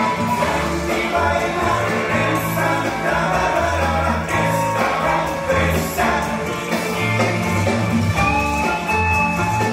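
Cha-cha-cha dance music with vocals and a steady beat, played for the dancers over the hall's sound system.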